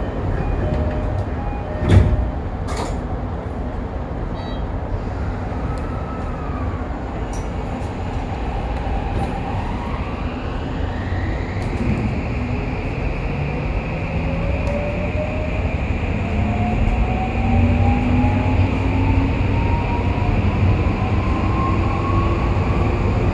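Inside a Toei 5500 series subway car: two sharp knocks about two seconds in, then the train pulls away. Its Mitsubishi full-SiC VVVF inverter and traction motors give a whine that climbs steadily in pitch as it accelerates, over the low rumble of the car.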